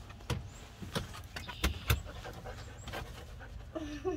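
Dog panting, with several sharp taps and knocks, the loudest two a little before two seconds in.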